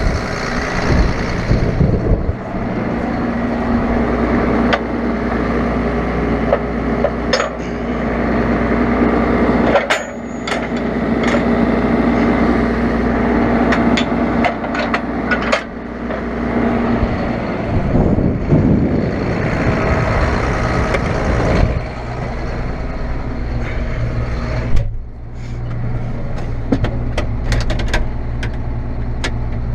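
Farm tractor engine running steadily under way, with frequent rattles and knocks from the machinery; the engine sound eases briefly about 25 seconds in.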